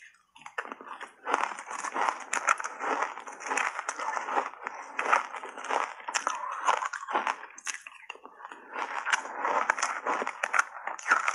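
Close-miked crunching and chewing of a mouthful of shaved ice coated in matcha powder: a dense run of crackles and crunches with a couple of brief pauses.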